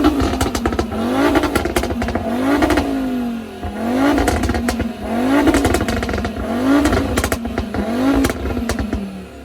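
Car engine revved over and over through its exhaust, the pitch rising and falling about once a second, with sharp crackles in between. The revs drop away near the end.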